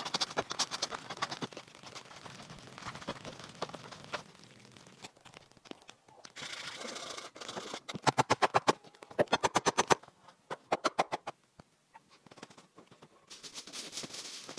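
Hand woodworking on a log shelter frame: a saw scraping through a wooden pole, then several bursts of rapid sharp knocks from hammering a nail into the log frame, loudest about two thirds of the way through.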